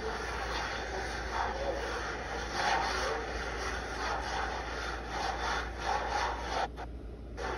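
Drawing material rubbing and scraping across large sheets of brown paper stretched on a frame, in a run of repeated sweeping strokes, with a short pause near the end.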